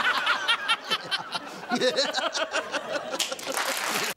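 Hearty laughter from several people at once, cutting off suddenly near the end.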